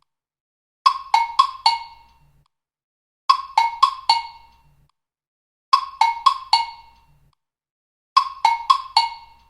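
TikTok ringtone playing on a loop: a short phrase of four quick, plucked-sounding notes, the last a little lower, repeated four times about every two and a half seconds with short silences between.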